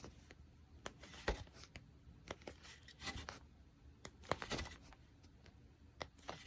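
Paper pages of a diary being turned by hand: a series of short, faint paper rustles and flicks.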